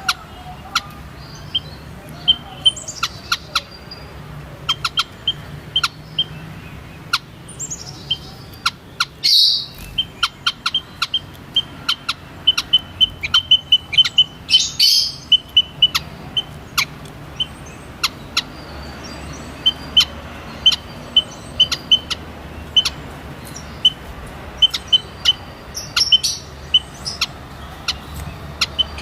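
White-headed munias calling: runs of short, high chip notes with a few falling whistles, and two louder, higher calls about nine and fifteen seconds in.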